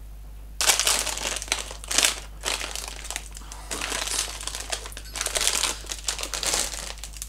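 Crinkly plastic sweet packet rustling in irregular bursts as it is opened and a hard licorice sweet is taken out, starting about half a second in.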